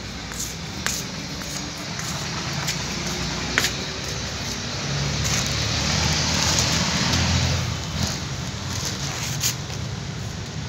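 Plastic sheeting over sacks rustling and crinkling, with scattered sharp clicks. A louder stretch of rustling runs from about five to eight seconds in, over a steady background noise.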